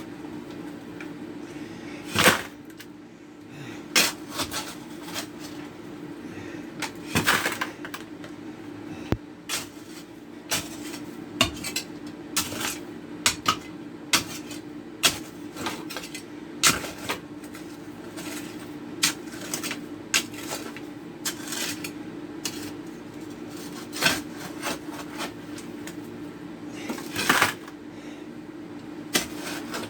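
Military trifold shovel digging into damp fill and rocks, with irregular sharp scrapes and clinks as dirt and stones are scooped and dropped into a bucket, over a steady low hum.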